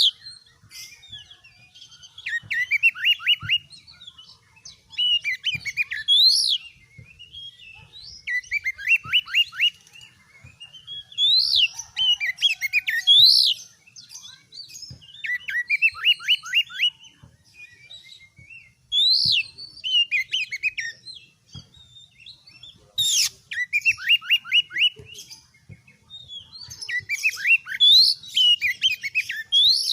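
Oriental magpie-robin (kacer) in full song, repeating loud phrases every three to four seconds. Each phrase is a quick run of about ten short falling notes mixed with higher rising and falling whistled sweeps.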